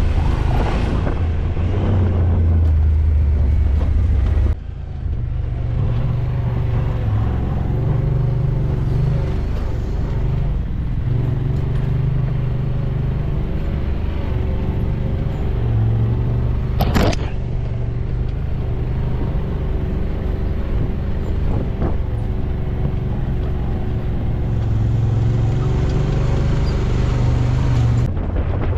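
A vehicle engine running steadily under road and wind noise while riding, its pitch drifting a little with speed. The sound breaks off abruptly about four and a half seconds in and again near the end.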